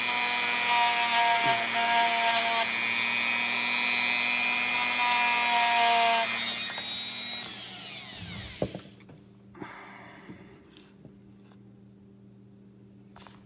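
Small handheld rotary tool running at high speed, its bit polishing the edges of a steel Glock trigger bar with a steady high whine. About six seconds in it is switched off and winds down over a couple of seconds, followed by a few light clicks.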